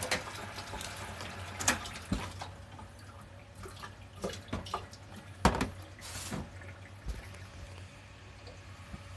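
Pot of miso soup with fried tofu and wakame simmering: a liquid bubbling with scattered sharper pops and clicks, the loudest about five and a half seconds in.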